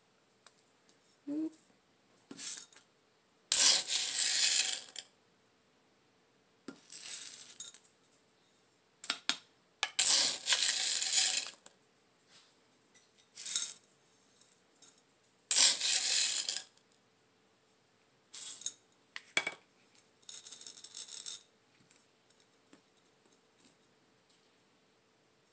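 Potting soil being scooped and poured into a plant pot by hand during repotting, in several separate bursts about a second long with pauses between them.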